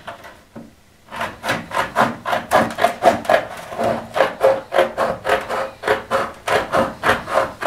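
Aviation tin snips cutting sheet metal: a steady run of short crunching snips, about four a second, starting about a second in.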